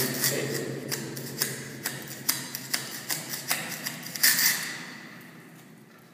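A hand scraper blade scraping a white coating off a concrete floor in short, sharp strokes, about two or three a second, the loudest a little past four seconds in. The strokes stop after about four and a half seconds.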